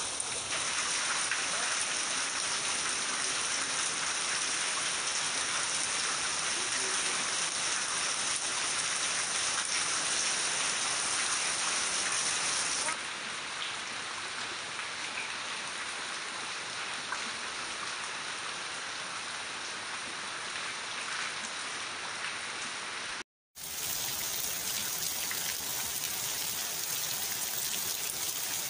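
Steady rain falling on leaves and ground, an even hiss of drops. The sound shifts slightly about a third of the way in and cuts out for a moment about two thirds of the way through.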